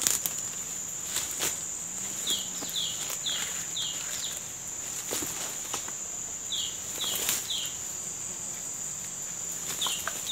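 Forest insects keep up a steady high-pitched drone, with runs of two to four short falling chirps several times over. Footsteps crunch and snap through dry leaf litter and twigs in the undergrowth, with a sharp crack right at the start.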